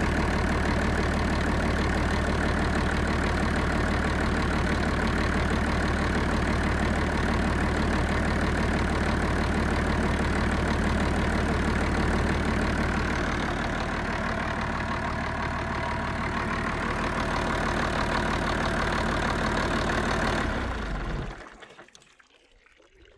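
Perkins Sabre M215 six-cylinder turbocharged marine diesel idling steadily, then winding down and stopping near the end.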